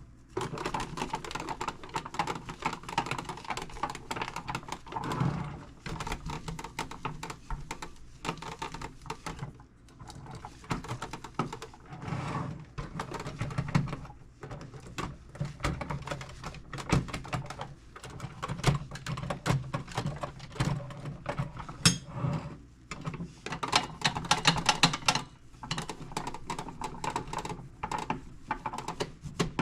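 Scratchy rubbing with rapid light clicks and ticks, in irregular spells, as a cloth is wiped over a metal tool box.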